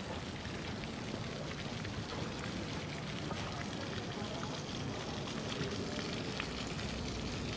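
Steady outdoor street ambience: an even hiss with scattered faint ticks.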